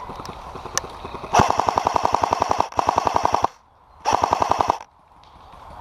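Airsoft gun firing full-auto: three rapid bursts of evenly spaced shots, a longer one of over a second followed by two shorter ones.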